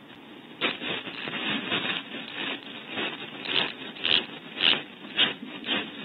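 Scraping and rubbing inside a wooden barn owl nest box, close to the box camera's microphone, as the cavity is cleared out. The strokes are irregular, about two a second, start about half a second in and are loudest in the second half.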